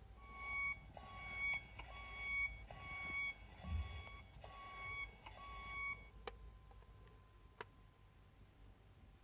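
Electronic beeping from the sound-effects module of a 1/8 scale DeLorean time machine model: about seven steady beeps just under a second apart, stopping about six seconds in, followed by two faint clicks.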